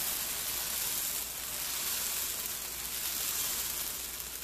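Dosa batter sizzling in a steady hiss on a hot, oiled cast-iron pan as it is spread out in circles with a ladle.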